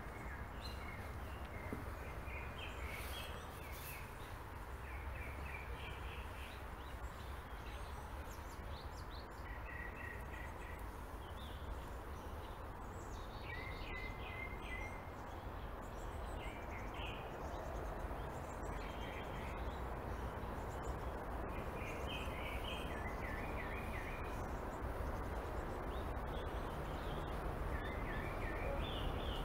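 Small birds chirping again and again among trees, over a steady background hiss and low rumble of outdoor ambience.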